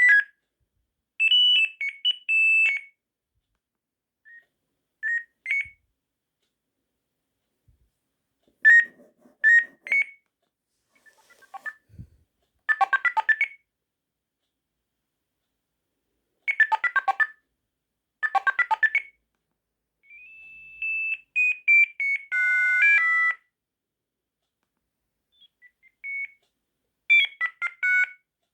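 Sagem MY 3022 mobile phone playing ringtones: a series of short, high-pitched electronic melodies, one after another, each lasting one to three seconds, with silent pauses between them.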